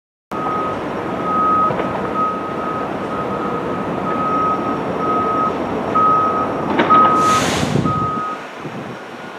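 An electronic warning beeper sounds a single high tone about once a second over a steady low rumble. A short hiss of air comes about seven seconds in, and the rumble fades soon after.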